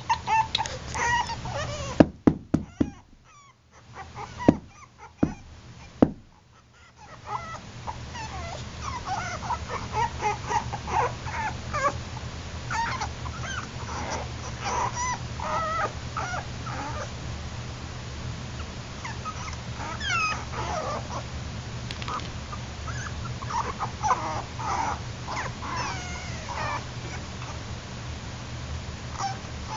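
Yorkshire terrier puppies whimpering and squeaking, many short high calls overlapping. A few sharp knocks come in the first six seconds, and a steady low hum sits under the calls from about seven seconds in.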